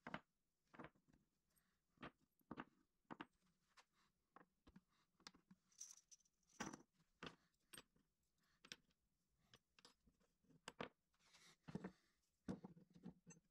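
Faint, irregular clicks and taps of small metal tools (router bits, calipers, a wrench) being set into the pockets of a wooden tool tray.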